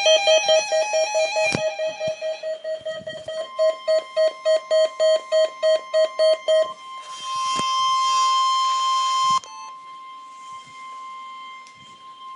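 NOAA Weather Radio weekly test alarm: weather radios beep a loud alert about three times a second over the steady, single-pitched 1050 Hz warning alarm tone. The tone comes in a few seconds in and carries on alone after the beeping stops. A harsh hiss joins the tone for a couple of seconds in the middle, then cuts off suddenly.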